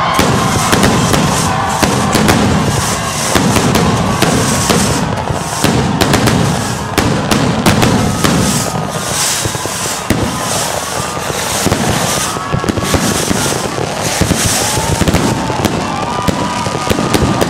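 Fireworks display: a dense, continuous run of bangs and crackling as rockets rise and burst overhead. Thin wavering whistles sound over them, mostly in the second half.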